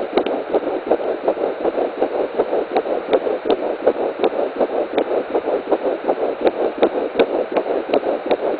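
Fetal heartbeat at 10 weeks 5 days, picked up by a Doppler ultrasound: rapid, even pulses close to three a second.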